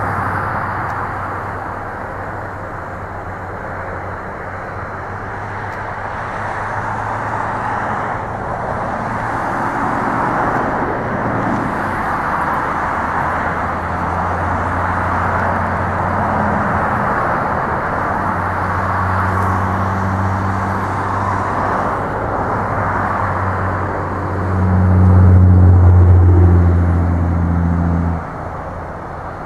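Steady outdoor roar of distant engine noise, with a low engine hum that grows louder near the end and then stops abruptly.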